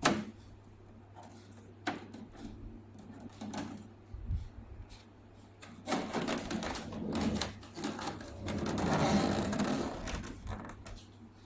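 Plastic clicks and rubbing from handling the dehumidifier's dust filter and panel, with a longer stretch of scraping or rustling near the end, over a steady low hum.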